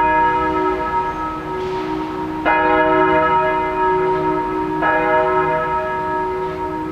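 A single large church bell swinging and tolling: the Reformationsglocke, the e-flat′ bell II of a Rincker peal, weighing 1,543 kg. Two clapper strikes land about two seconds apart, and each rings on in a long, humming decay over the last.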